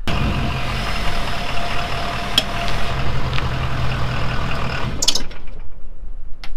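A 2015 Ford F-250's 6.7 L Power Stroke turbo-diesel V8 idling steadily, with a short sharp noise about five seconds in.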